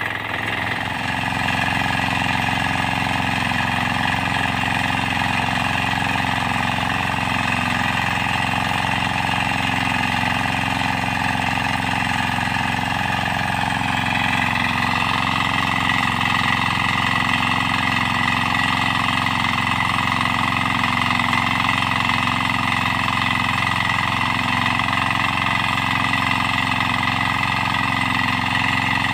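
Single-cylinder diesel engine of a 9 hp Kama power tiller running steadily while its rotary tines cultivate dry soil.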